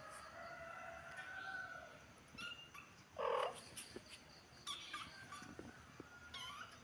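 Domestic cats meowing: a drawn-out, wavering meow for about two seconds, then a short, louder meow a little over three seconds in. A few faint high chirps follow.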